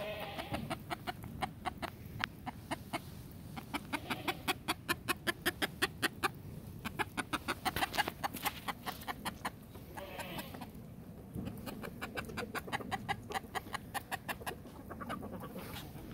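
Chicken clucking in long runs of quick, short clucks, several a second, with brief pauses and one louder call about ten seconds in.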